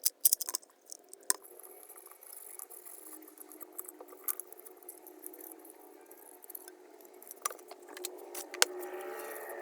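Handling noise: a quick cluster of sharp clicks and taps at the start, then single clicks every few seconds, over a steady low hum.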